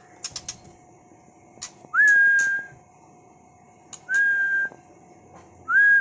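Three clear whistled notes at one steady pitch, each sliding quickly up and then held level for about half a second, roughly two seconds apart. A few light clicks come before the first note.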